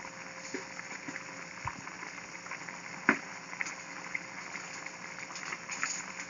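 Papaitan broth of beef tripe and offal boiling in a pot: a steady bubbling with scattered small pops, one louder pop about three seconds in.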